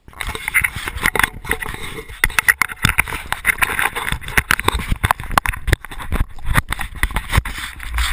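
Handling noise from a hand-held action camera: a dense, irregular run of sharp knocks, scrapes and rubbing close to its microphone, over a low rumble.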